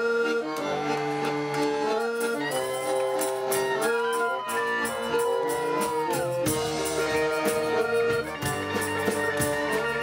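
Live band playing, led by held accordion chords over electric guitar, upright bass and a drum kit, with cymbal hits getting busier about six seconds in.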